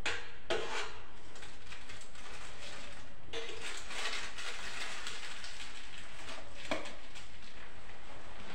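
Bowls and decorating tools being handled on a kitchen counter while cupcakes are decorated: a couple of short knocks at the start, a longer clattering rattle about three seconds in, and another knock near the end, over a steady low hum.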